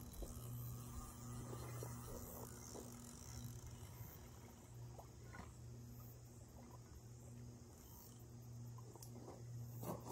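Faint outdoor ambience: a steady low hum under faint insect chirring, with a few light clicks.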